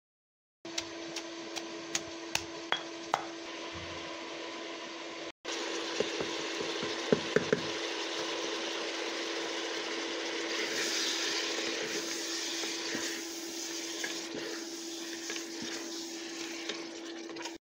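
A stone mortar and pestle being pounded: about seven sharp knocks, a little over two a second. The audio cuts off abruptly, then meat frying in a pressure cooker pot with a steady sizzle, a few clinks of a spatula against the pot as it is stirred, and a steady low hum underneath.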